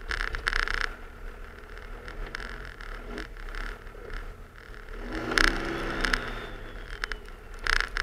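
Cummins inline-six turbodiesel in a Dodge Ram 2500 running under load as the snowplow pushes heavy, dense snow. The engine swells about five seconds in, with a faint whistle rising and falling above it. Short scraping hisses from the blade and snow come about half a second in, about five and a half seconds in, and again near the end.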